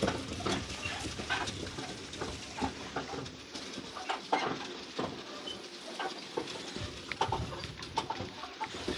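Loaded camel cart rolling over a dirt track: irregular clicks and knocks from the cart, several a second, over a low rumble.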